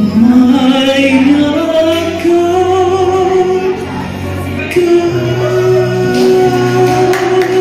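A man singing through a handheld microphone over backing music, sliding up into a note at the start and then holding long, steady notes.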